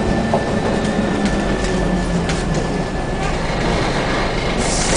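Scania N113CRB bus heard from inside the saloon while under way: its DSC11 engine drones under a steady road and tyre rumble, with a few rattles from the fittings and a thin steady whine.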